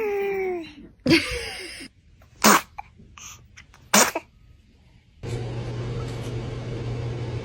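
Babies sneezing: a run of short, sudden sneezes in the first four seconds, the first with a voiced falling cry. From about five seconds in there is a steady hiss with a low hum.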